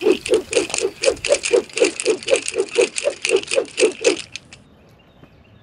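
Rapid rhythmic rattling, about four beats a second, stopping about four seconds in.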